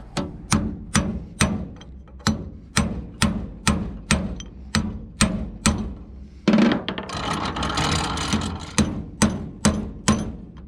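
Heavy hammer blows on a wheel-hub lug stud, about two strikes a second in a steady run. About two-thirds of the way through, a rushing hiss lasts around two seconds before the strikes resume.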